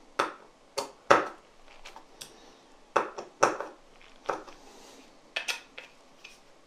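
About ten irregular sharp clicks and taps of hard plastic and metal parts as an LED projector headlight module is handled and a screwdriver is worked in it during reassembly.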